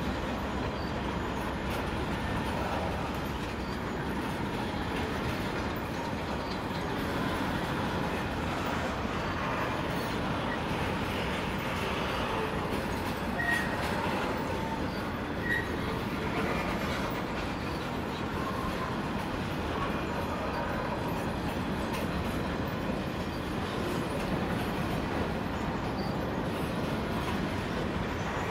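Broad-gauge grain hopper wagons of a freight train rolling past: a steady rumble and clatter of steel wheels on the rails. Two brief high wheel squeals come a little past the middle.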